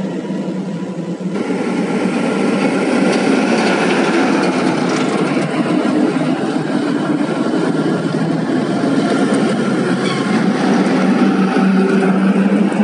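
Heavy diesel dump trucks hauling loads of coal pass one after another, their engines running steadily under load. The sound jumps abruptly about a second in.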